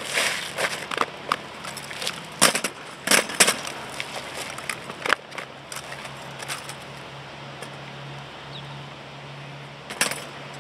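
Drill rifles clacking as a drill team catches, slaps and grounds them: sharp knocks, thick in the first few seconds, sparse through the middle, with another cluster near the end.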